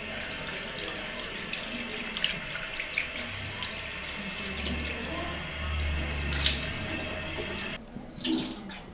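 Water running from a bathroom sink tap into the basin, with hands moving under the stream. The flow drops away near the end.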